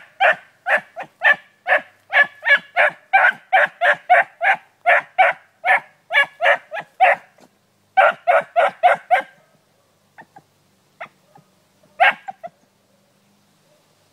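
Young rabbit hound barking on the trail of a rabbit, in quick short barks about three a second. The barking breaks off after about seven seconds and picks up again briefly. It then thins to a few scattered barks, one louder near the end.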